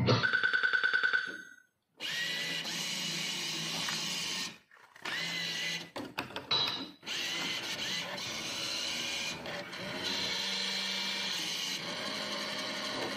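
CIRSA slot machine giving a short, rapidly pulsing electronic tone as its bonus counter goes up. After a brief gap comes about eleven seconds of steady mechanical whirring and rattling from the machine, broken twice by short pauses.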